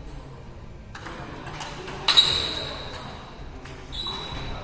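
Table tennis ball hits during a rally: a few sharp strikes of ball on paddle and table. The loudest comes about two seconds in, with a high ringing tail.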